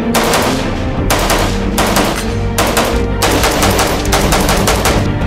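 Rapid strings of rifle fire from an AK-pattern rifle fitted with a ported muzzle brake, the shots coming in quick runs separated by short breaks. Background music plays underneath.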